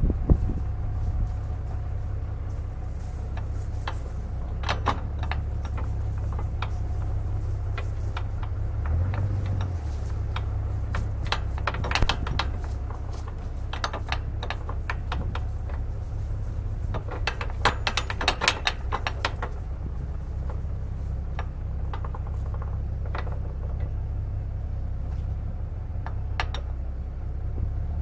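Low wind rumble on the microphone, with irregular clicks and short rattles of handling, coming in clusters about halfway through and again about two-thirds of the way in.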